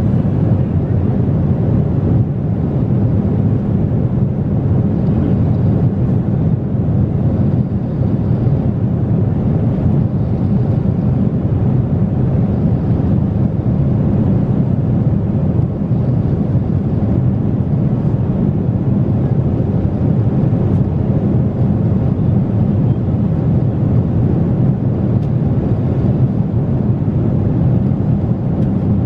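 Steady low rumble inside the cabin of a Boeing 777-300ER in cruise: engine and airflow noise, unchanging throughout.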